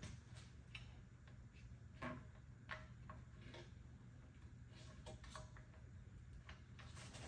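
Faint, irregular clicks of Ironton ratcheting work clamps being worked to pull an aluminum gas-tank tunnel down into shape.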